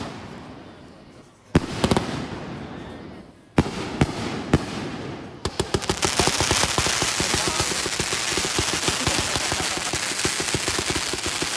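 Fireworks going off: three separate loud bangs, each fading away over a second or two, then from about five and a half seconds a dense, rapid crackle of many small pops, like a string of firecrackers.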